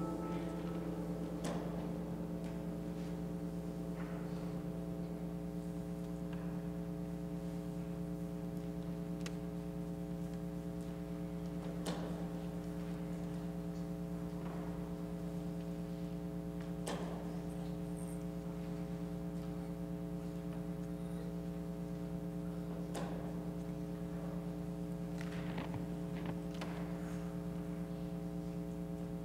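Steady low electrical hum with several overtones, unchanging in pitch and level, with a few faint knocks and clicks scattered through it.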